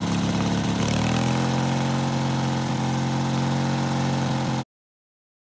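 Turbocharged Briggs & Stratton engine of a John Deere riding mower running. Its pitch rises over the first second, then holds steady until it cuts off abruptly near the end.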